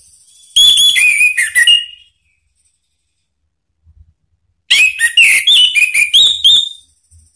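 Orange-headed thrush singing two phrases of rapid, varied high whistled notes, the first about a second and a half long and the second about two seconds, with a short pause between them.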